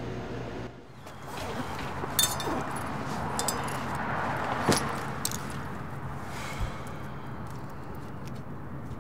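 Night street ambience with a car passing, its sound swelling and fading, over a few sharp clicks and rattles like keys and a door handle, and a low thump about two-thirds of the way through. A steady hum cuts off under a second in.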